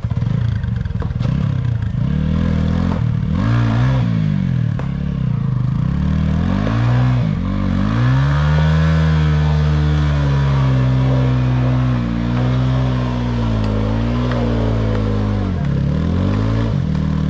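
TVS Apache RTR 200's single-cylinder engine revved hard again and again, pitch rising and falling, with one long held rev in the middle, as the bike is gunned to free it from deep mud.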